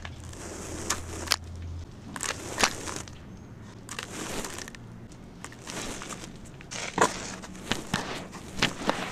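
Dry, crumbly reused cement being crushed by hand and dropped in handfuls into a basin: gritty crunching and the hiss of falling granules, with sharp crackles as lumps break at irregular moments.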